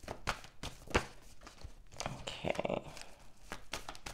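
A deck of tarot cards being shuffled overhand, the cards tapping and slapping against each other in quick, irregular clicks, with one sharper tap about a second in.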